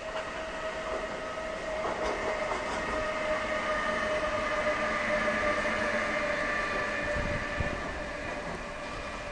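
A DB electric locomotive passing on its own, its traction equipment giving a steady whine of several held tones over the rolling noise. It grows louder towards the middle and then fades as it moves away, with a couple of low thumps from the wheels about seven seconds in.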